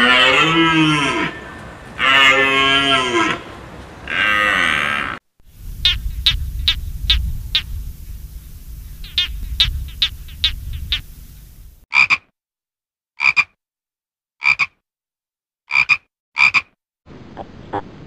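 A run of different animal calls: first three long wavering calls, each over a second, then a string of rapid clicking croaks over a low rumble, then five short separate high calls about a second apart, and faint quick ticking near the end.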